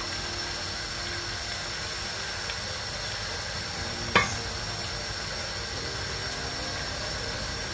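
A wide pan of rice, squid and vegetables sizzling steadily on the heat, with a single sharp metal clink about four seconds in, as a ladle strikes a steel stock pot.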